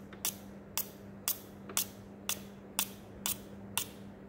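A fire-starter rod scraped repeatedly with its steel striker, throwing sparks: eight quick, sharp scrapes at about two a second.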